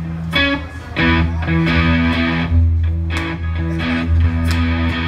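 Live rock band playing: electric guitar chords over a bass guitar line and drums with cymbal strokes, with a short break about half a second in.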